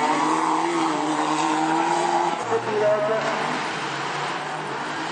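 Engines of a pack of autocross cars racing on a dirt track, several engines running together over the noise of the cars. The engine tones change abruptly a little over two seconds in.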